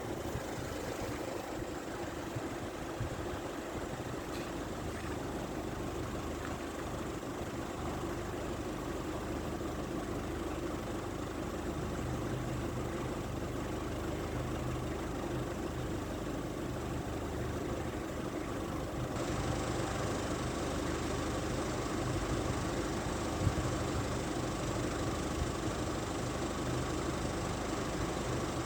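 Engine idling steadily with a low, even hum, with no rise or fall.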